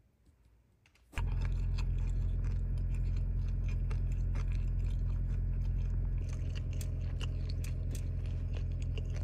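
Steady low rumble of a car warming up, heard from inside the cabin, starting about a second in. Crisp chewing and crunching sounds come over it.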